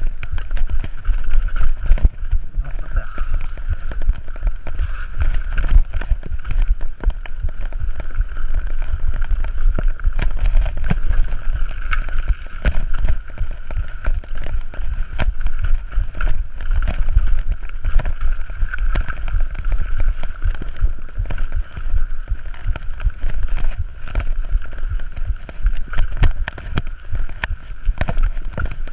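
Mountain bike ridden fast down a dirt forest trail, heard from an action camera on the bike or rider: a constant rumble of wind and tyres on dirt, broken by frequent rattles and knocks as the bike hits roots and bumps.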